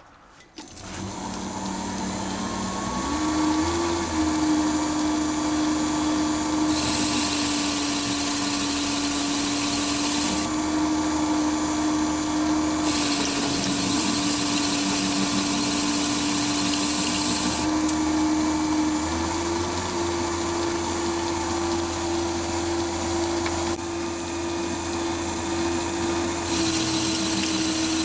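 Small metal lathe starting up about half a second in and running steadily at several hundred rpm, with a steady motor hum and a high whine. Three times the sound turns hissier as the turning tool takes roughing cuts on the spinning metal billet.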